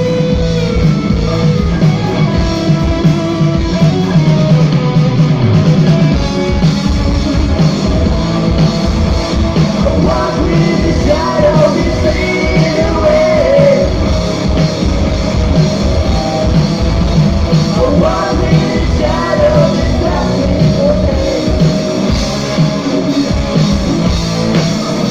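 A live rock band playing loud: electric guitars, bass guitar and a drum kit, with a voice singing over it at times.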